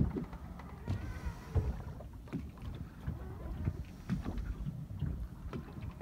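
Small waves slapping and knocking irregularly against the hull of a small boat rocking on the swell, over a low wind rumble.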